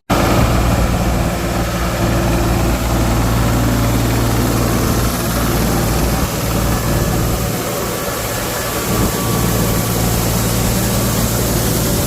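Tractor diesel engine running steadily at high idle, a constant low drone with a steady hum and no change in speed.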